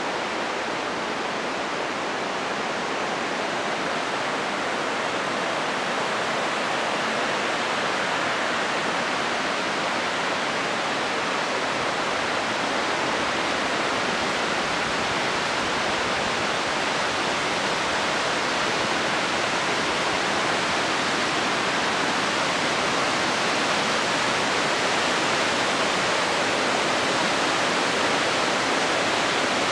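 Waterfall rushing, a steady roar of falling water that slowly grows louder.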